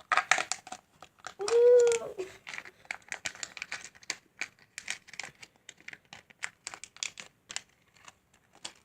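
Packaging being torn open and crinkled by hand: a dense run of sharp crackles and rustles, busiest in the first second, thinning out and stopping just before the end. A short 'ooh' is voiced about two seconds in.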